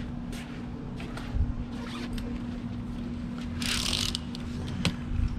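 Boat cover tie-down straps being pulled tight: scattered clicks of buckles and straps, and a half-second rasp of webbing sliding through a buckle about three and a half seconds in. A fan runs underneath with a steady hum.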